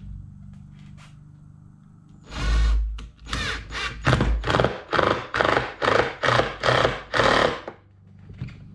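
Cordless impact driver driving screws in about a dozen short bursts, roughly two a second, starting about two seconds in, the first burst the longest.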